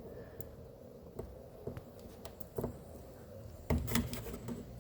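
Faint scattered clicks and taps of hand work at a car's plastic door panel, getting busier near the end.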